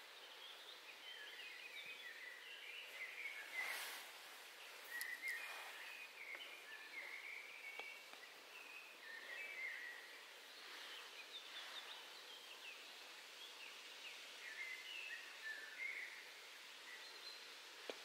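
Faint birdsong: quick twittering phrases from songbirds, coming and going throughout over a quiet outdoor hiss. A few brief scratchy rustles, about four seconds in and again around eleven to twelve seconds, from a small rodent digging in loose soil.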